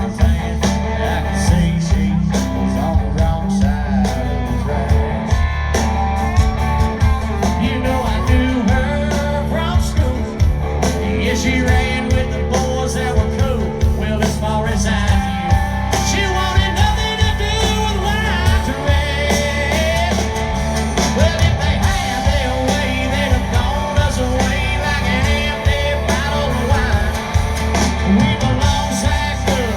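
Loud live country-rock band playing, with a steady drum beat and singing.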